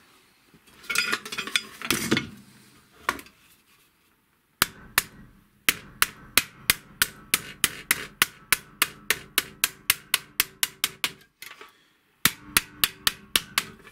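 Wooden mallet beating a sheet of galvanized steel clamped in a vise, folding its edge down. After some handling of the sheet, the mallet starts about four and a half seconds in: a quick run of sharp knocks, about three a second, with a light ring from the metal. The blows stop briefly near the end, then a few more follow.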